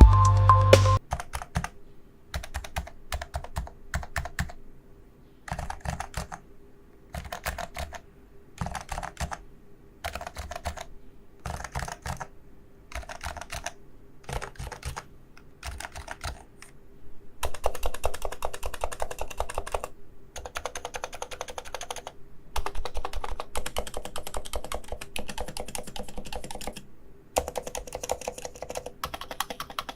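Typing on a Realforce Topre electro-capacitive keyboard, in short bursts of keystrokes with pauses between them, then nearly continuous fast typing from about halfway through. A bit of music cuts off about a second in.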